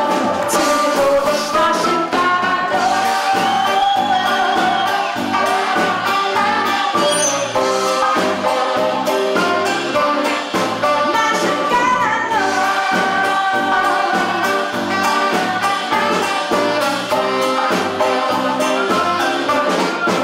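Live jazz band playing an instrumental break in the song: a brass-like lead melody with long sliding notes over a steady, regular beat.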